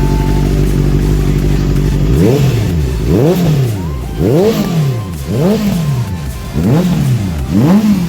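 Motorcycle engine running steadily, then revved in six quick throttle blips about once a second, each rising and falling in pitch.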